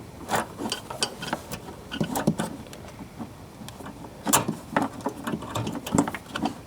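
Scattered small clicks and light knocks of hands working a wire retaining clip over an H7 bulb in a car headlight housing, with one sharper click about four seconds in.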